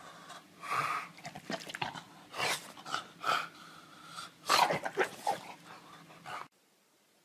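A dog making a run of short, irregular vocal sounds. The sound cuts off abruptly about six and a half seconds in.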